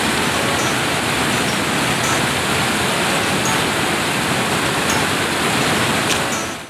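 Creek water rushing over low rock ledges in a small cascade, a steady rush that fades out near the end.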